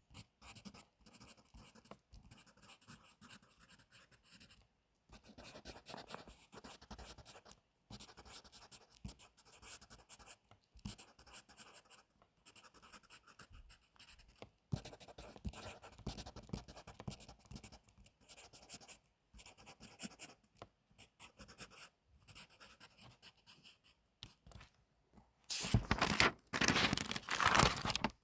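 Pencil writing on paper: short runs of scratchy strokes with brief pauses between them. Near the end comes a louder, noisier sound in two parts, lasting about two seconds.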